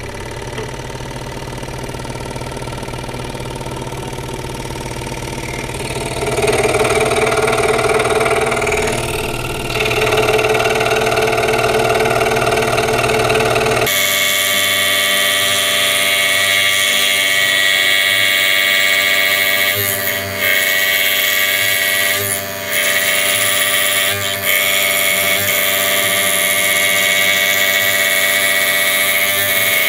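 Electric woodworking power tool running steadily. About halfway through the sound changes abruptly from a low hum to a higher-pitched whine, which briefly dips a few times.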